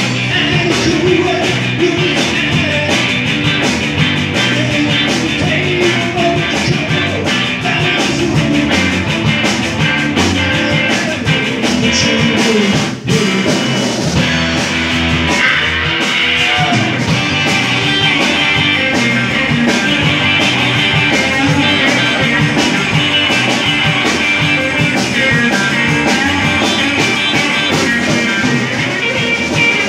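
Live rock band playing loudly on electric guitars, electric bass and drum kit, with a momentary break in the playing a little before halfway through.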